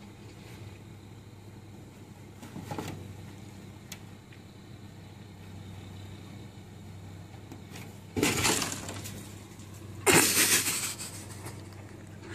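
A cat leaping and scrambling on the snow-covered body of a car. There are two loud, scraping, crunching noises, one about eight seconds in and a longer one about ten seconds in, over a steady low hum.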